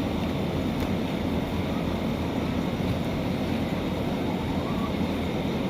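Steady low rumble with a hiss above it, even throughout, with no distinct events.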